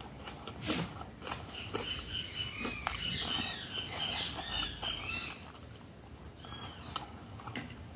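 A small bird chirping: a quick run of short, arched, repeated notes lasting about three seconds midway, and a couple more later. A few soft clicks are heard as well.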